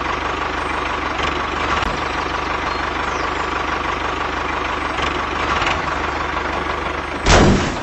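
Mini DIY tractor running steadily as it drives along pulling a cultivator, an even running sound with a faint steady high hum. A brief loud burst of noise comes near the end.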